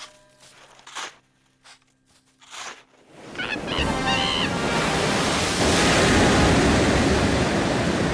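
Cartoon sound effects: four soft swishing strokes of snow being flung, then a short wavering scream from Flaky the porcupine, then a loud rushing rumble that builds up about three and a half seconds in and keeps going.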